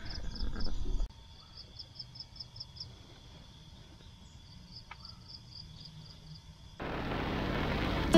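Night insects chirping around a tent: short high chirps repeated in quick even series, a few a second, with a pause in the middle, over a faint low hum. About a second and a half before the end it cuts abruptly to a louder, even rushing noise of a car driving in the rain.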